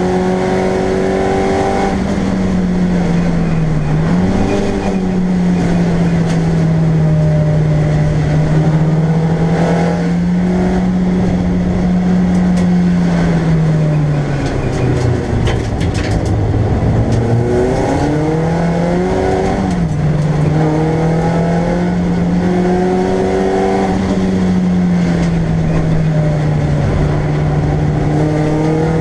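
BMW Compact race car's engine under racing load, heard from inside the stripped cabin. Its note rises and falls with throttle and gear changes, dropping steadily in the middle as the car slows, then climbing again. Twice the note dips and snaps straight back up.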